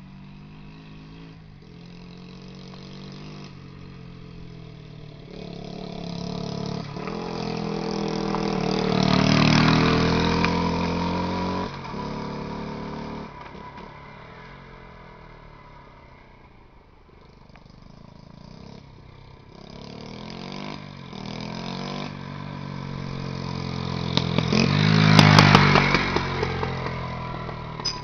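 Small motorcycle engines revving on a dirt hill climb, rising and falling in pitch. One bike grows louder to a peak about nine seconds in and fades away, then another pass builds to a louder peak around twenty-five seconds.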